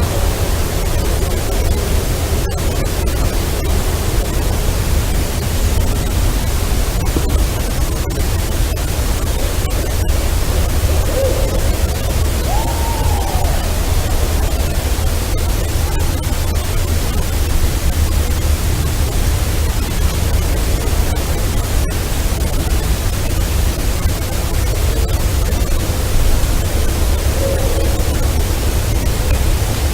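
Steady loud hiss and low rumble of a heavily amplified outdoor field recording, with a few faint clicks. About twelve seconds in, a brief faint call rises and falls in pitch once; a couple of even fainter short sounds come near 11 seconds and near the end.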